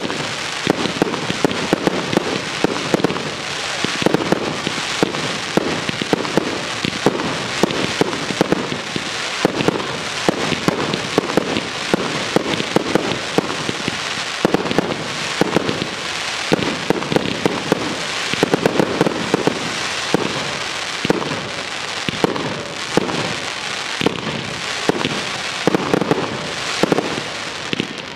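Professional aerial fireworks firing in a dense, continuous barrage, many shells launching and bursting in quick succession as a constant run of sharp bangs.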